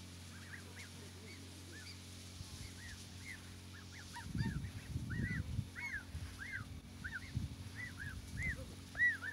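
Goslings peeping: short, high, arching chirps repeated over and over, sparse at first and growing busier and louder toward the end.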